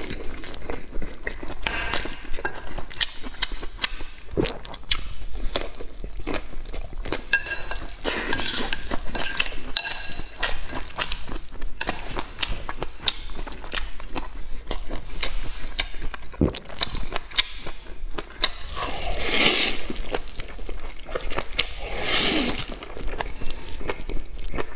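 Close-miked eating of wide oil-splashed noodles: wet chewing and mouth smacks with chopsticks clicking against the bowl, and two long slurps of noodles about 19 and 22 seconds in.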